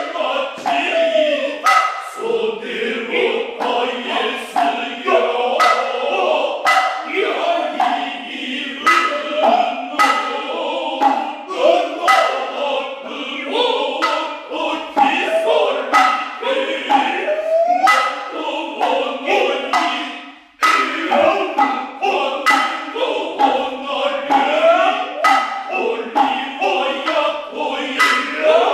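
Noh chorus (jiutai) chanting in unison, punctuated by many sharp strikes of the kotsuzumi and ōtsuzumi hand drums; the chant breaks off briefly about two-thirds of the way through.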